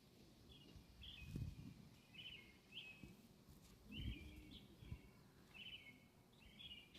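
Faint chirping of small birds: short high calls repeated roughly every half second to a second. Two soft low rumbles come about a second and a half in and about four seconds in.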